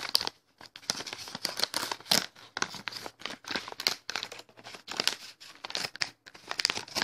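Parcel wrapping crinkling and rustling in irregular bursts as it is handled and opened by hand.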